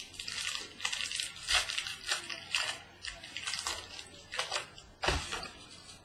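Packaging crinkling and tearing as a sealed trading-card box is opened, in a string of short, scratchy rustles with a louder one about five seconds in.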